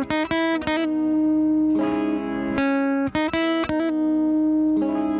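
Background music: a tune of plucked notes, several a second, over held tones.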